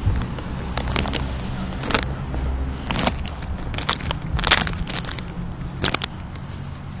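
A vehicle engine running steadily as a low hum, with short sharp crackles and clicks about once a second.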